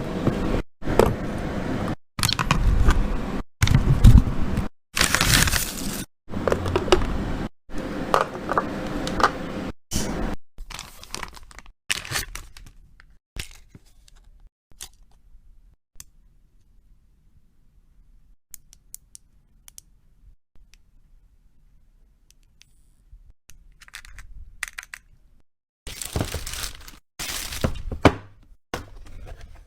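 Handling noises from unboxing and restocking: packaging tearing and crinkling, and small items knocking and clacking, in short bursts that stop abruptly. A quiet stretch in the middle holds only scattered light clicks, before the bursts start again near the end.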